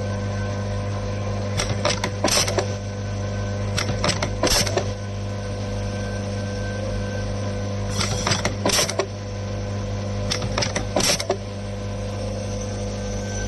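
Waterproof-seal threading and inserting machine for wire ends running with a steady hum, cycling four times with a quick cluster of sharp mechanical clicks and clacks every two to three seconds as wires are fed in.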